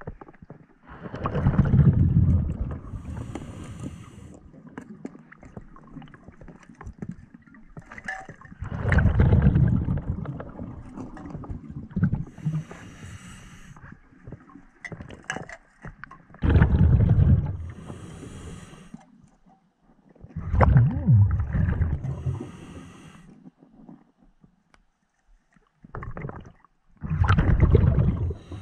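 Scuba diver breathing through a regulator underwater: five surges of exhaled bubbles, each followed by a fainter high hiss of the demand valve on the inhale.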